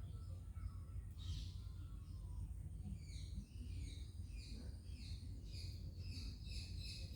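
Myna birds calling: one call about a second in, then from about three seconds on a quick run of short, repeated chirps, several a second. A steady low rumble runs underneath.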